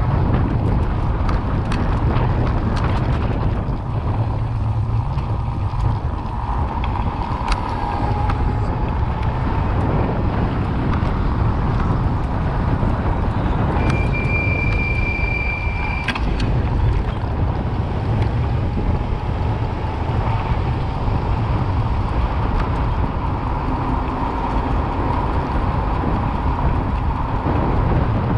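Wind rumbling on the microphone of a moving bicycle along with street traffic noise. About halfway through, a single high steady squeal lasts about two seconds.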